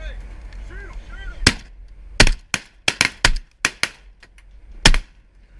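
Shotguns firing a rapid volley from more than one gun, about nine shots over three and a half seconds, starting about a second and a half in, with the last and loudest shot near the end.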